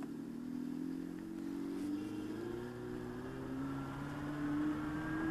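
Revolt RV400 electric motorcycle pulling away from a standstill in its third mode, its simulated engine sound rising steadily in pitch as it gains speed, with a fainter high whine rising along with it.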